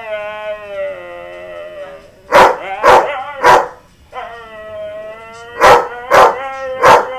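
A Siberian husky howling in two long, wavering notes. Each howl is answered by another dog's three sharp barks, which are the loudest sounds.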